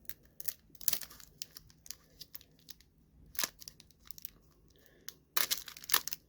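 Plastic wrapper of a football card pack being torn open and crinkled in the hands: irregular sharp crackles, densest and loudest near the end.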